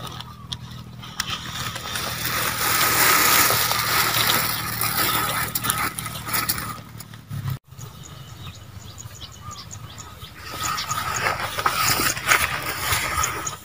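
Close-up rustling and crinkling of banana leaves and grass strips as leaf-wrapped parcels are tied shut, with small clicks. The sound cuts out for an instant about halfway through, and then similar rustling carries on.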